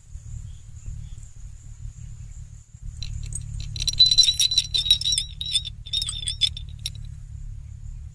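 Metallic jingling and clinking for a few seconds in the middle, a rapid run of small ringing strikes over a steady low rumble.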